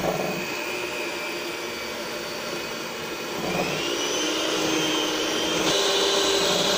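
Electric hand mixer running, its beaters whipping an egg-and-sugar batter. The motor's whine rises in pitch a little past halfway and gets louder near the end.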